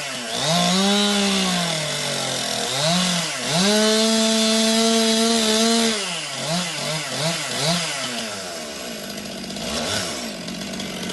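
Stihl two-stroke chainsaw engine revved hard and let back down. It is held at full throttle for a couple of seconds midway, blipped several times in quick succession, and then drops to a lower idle near the end.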